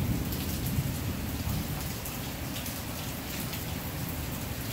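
Steady rushing noise with a low rumble underneath and a few faint crackles.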